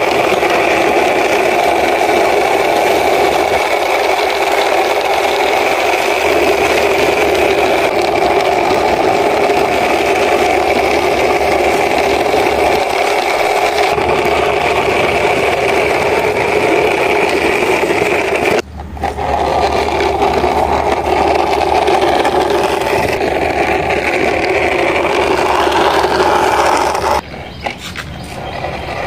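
Plastic toy bus pushed by hand along a concrete wall top: a steady whirring rattle from its wheels running on the rough surface, cutting out briefly twice, about two-thirds of the way in and near the end.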